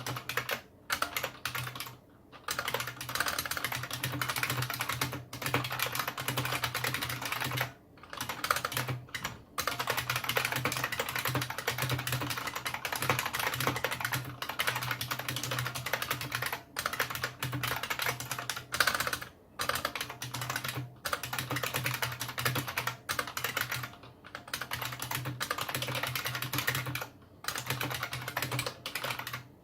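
Continuous fast typing on a Unicomp Model M keyboard with buckling-spring switches: a dense run of loud key clicks, broken by short pauses every few seconds.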